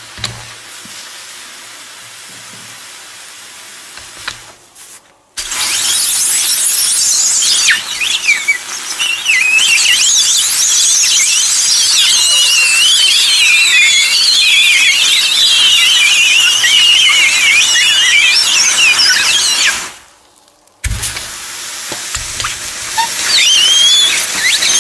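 Hot metal ball searing into watermelon flesh: the juice boils around it with a steady hiss and shrill, wavering squeals and whistles of escaping steam. The sound drops out briefly twice and picks up again each time.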